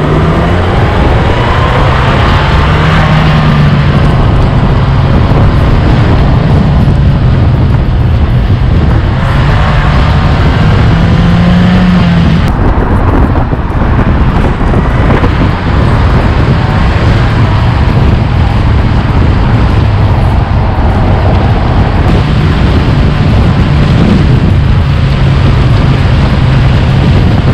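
Exhaust of a stage-1 tuned VW Golf 7 1.4 TSI turbo four-cylinder, heard at the tailpipe while driving. It is loud, with revs rising under acceleration twice and dropping back about twelve seconds in. Heavy road and wind rush runs underneath.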